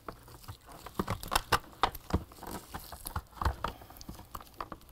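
Irregular plastic clicks and knocks as a replacement brush roll and its end caps are pushed and worked by hand into the plastic base plate of an Oreck XL2 vacuum, starting about a second in.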